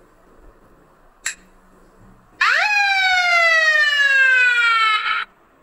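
Spinning-wheel app sound effect: a quick upward swoop, then a long, slowly falling pitched tone that lasts about two and a half seconds and stops abruptly, played as the wheel lands on its result. A single short click comes about a second in.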